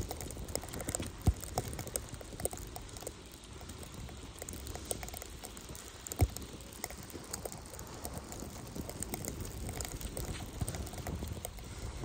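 Bicycle ridden through snow: a steady low rushing noise with irregular small clicks and rattles, and two sharp knocks, one about a second in and one about six seconds in.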